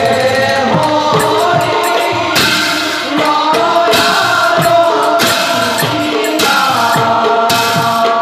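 Bhaona accompaniment music: voices singing a devotional chant over drum strokes, with hand cymbals clashing in several long ringing stretches.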